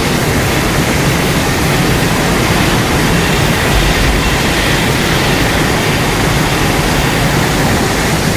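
Loud, steady rushing rumble with a faint high tone in it, part of a home-made Godzilla sound-effect mix.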